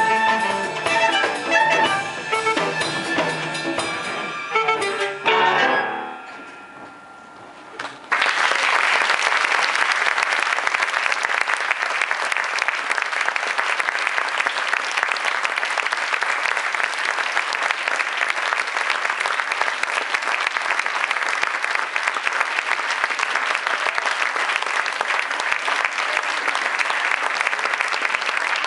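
A small ensemble of piano, strings, saxophones and Latin percussion plays the final bars of a mambo, ending about six seconds in. After a short pause, an audience applauds steadily.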